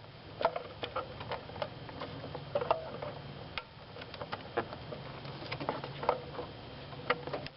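Irregular small plastic clicks and taps as fingers work the locking tab of the blower motor resistor's wiring connector to unplug it.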